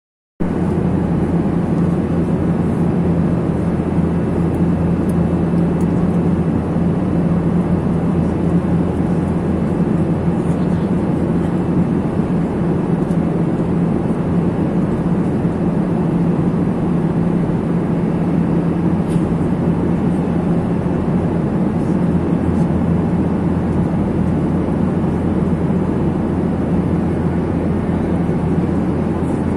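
Cabin noise of a Boeing 737 airliner in the climb: a constant rush of engine and airflow noise with a steady low hum underneath.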